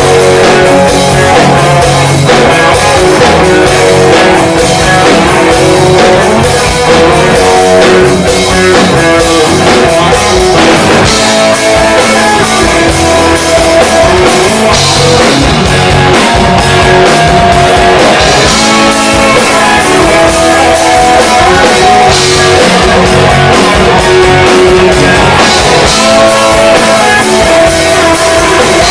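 Rock band playing live: electric guitars and a drum kit in an instrumental passage of the song.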